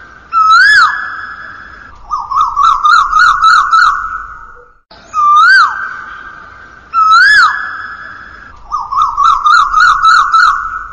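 Looped electronic police siren sound effect: a rising-and-falling whoop that holds a fading tone, then a fast warbling yelp. The cycle repeats about every five seconds.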